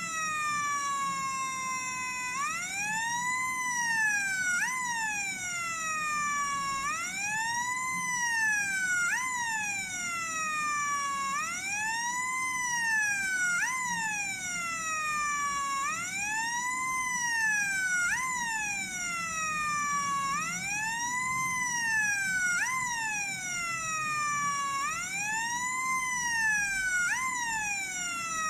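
NE555 timer siren circuit sounding through a speaker: a harsh electronic tone that sweeps up and down in pitch like a police siren, over and over, about one wail every four seconds. It cuts off suddenly at the end.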